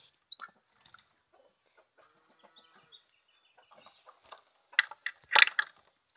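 Chickens clucking softly in a run, then a cluster of loud, short clatters about four to five and a half seconds in.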